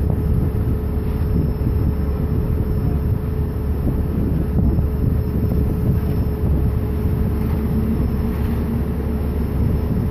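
Heavy engine running steadily at a constant pitch with a deep low rumble, mixed with wind buffeting the microphone.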